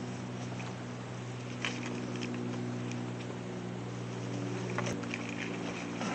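Rustling and a few light clicks of a fishing pack and vest being handled and swung onto the shoulder, over a steady low hum.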